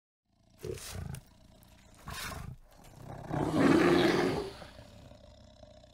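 A bear growling: two short growls, then a longer, louder one about three to four and a half seconds in that trails away.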